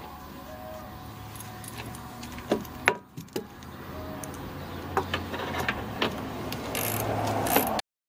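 Small metal parts clinking and rattling as a torx seat bolt, its washer and a socket are handled and fitted at the seat mount. A scatter of sharp clicks, the loudest about three seconds in, sits over a low steady hum.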